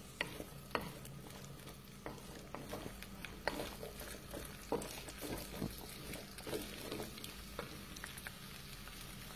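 Wooden spatula stirring diced zucchini in a wok, with scattered light knocks against the pan over a faint sizzle of the zucchini gently frying in oil to soften.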